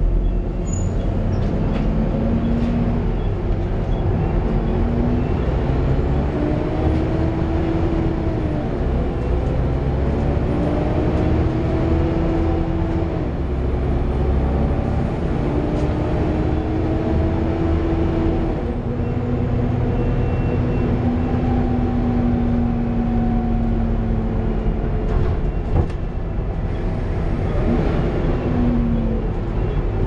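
Volvo B7TL double-decker bus under way, heard inside on the upper deck: engine and drivetrain running with a low rumble and a whine that climbs in pitch several times and drops back, then holds steady for a few seconds.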